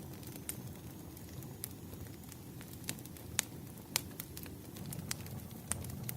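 Wood fire burning, with irregular sharp crackles and pops over a low steady rumble.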